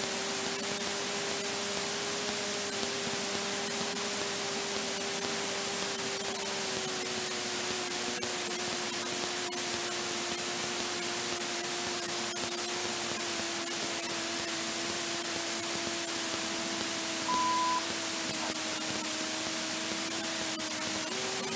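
Light aircraft engine and propeller at idle, heard as a low hum under heavy static hiss, as through a headset intercom feed. The hum sinks slowly in pitch through the landing and rollout. About three quarters of the way through comes one short high beep.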